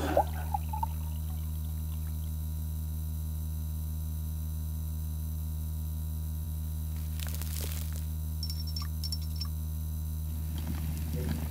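Steady low electrical hum, with a brief rush of noise about seven and a half seconds in and a few faint clicks just after.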